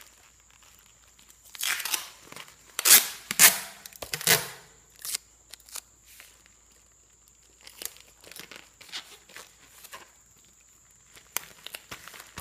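Clear packing tape and the parcel's plastic wrap crinkling and rustling under hands as the tape is stuck down and smoothed over an address label. A few loud rasping, tearing strokes come about two to four seconds in, then lighter rustles.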